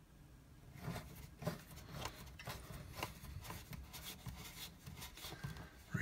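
Small clicks and rubbing of a washing machine hose's metal coupling being screwed by hand onto the threaded spout of a laundry faucet. The sounds begin about a second in and go on as a run of faint scrapes and clicks.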